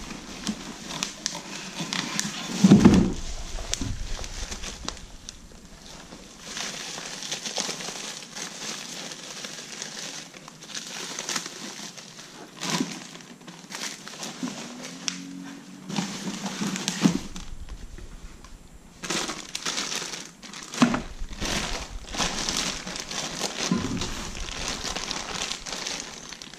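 Plastic bags and wrapping crinkling and rustling with small knocks as parts are unpacked from a cardboard box and handled, with one dull thump about three seconds in.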